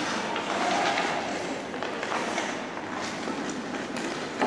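Ice hockey play: skate blades scraping and carving on the rink ice, with scattered clacks of sticks and puck and one sharper clack near the end.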